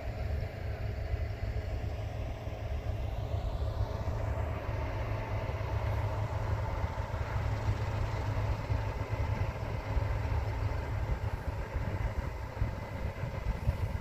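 Distant farm machinery harvesting barley, a faint steady drone, under wind rumbling and buffeting on the microphone.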